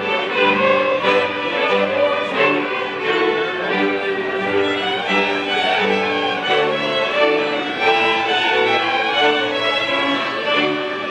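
A large ensemble of fiddles with a bowed bass playing Polish highlander (góralski) folk music, with steady sustained bowed notes moving from one to the next.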